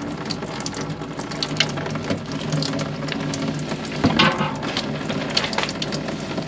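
Engine coolant pouring and splashing into a catch pan from an opened thermostat housing under a Subaru EJ22 engine, with small clicks and knocks of tools and parts and a louder clatter about four seconds in.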